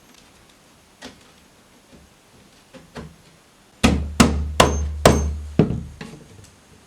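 A hammer striking: a couple of light taps, then five loud blows in quick succession, about two a second.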